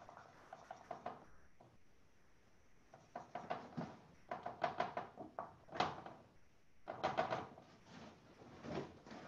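Drawing strokes on paper: short scratchy strokes in quick irregular clusters, faint for the first few seconds and then steadier from about three seconds in.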